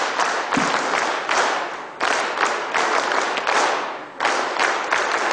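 A large audience clapping together in unison in a set rhythmic pattern, a led company group clap, repeated in phrases of about two seconds.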